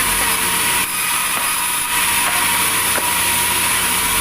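Sawmill saw cutting through a log: a loud, steady hiss of the blade in the wood over a constant low motor hum.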